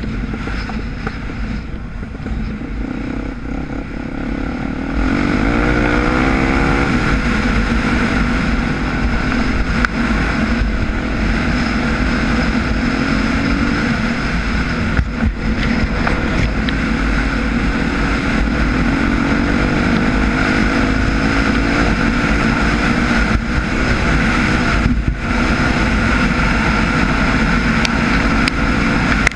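Dirt bike engine under way with wind rushing on the microphone; about five seconds in it revs up, climbing in pitch, then runs louder and steady, easing off briefly twice.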